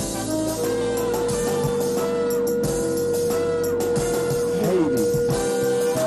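Music with a shofar sounding one long steady note, starting about half a second in and stopping just before the end; a falling, sliding note crosses it near the end.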